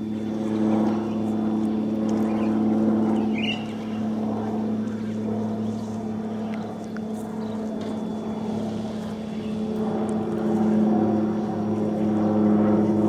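Steady motor hum: a low drone with several even overtones that holds its pitch, with a short high chirp about three and a half seconds in.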